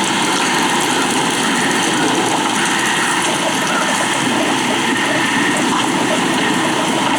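Steady rushing noise of a thunderstorm's rain and wind, even and unbroken.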